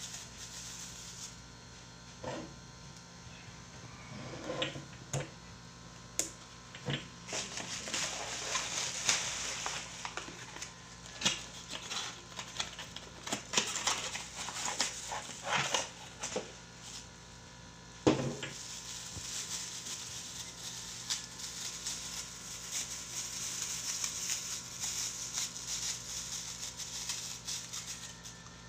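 Plastic wrapping and cardboard rustling as dispenser bottles are unwrapped and pulled from their box, with scattered clicks and knocks of the bottles being handled. One louder knock a little past the middle.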